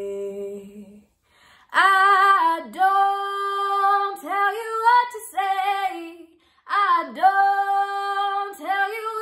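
A woman singing unaccompanied. A held note ends about a second in, then after a brief silence she sings two phrases with sustained notes.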